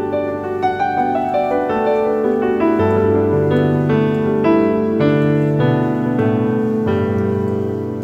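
Background piano music: a slow melody of single notes over held lower notes.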